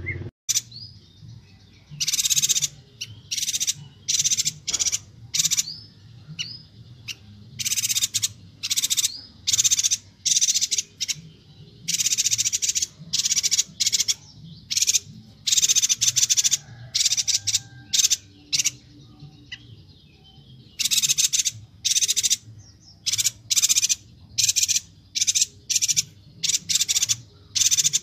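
Chestnut-crested yuhina calling: a rapid string of short, harsh, high chattering notes, packed closely in runs with brief pauses between them, over a faint low hum.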